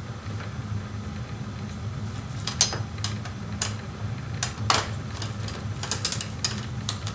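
Scattered light metal clicks and clinks of a 5 mm Allen key working the clutch slave cylinder bolts loose, over a steady low hum.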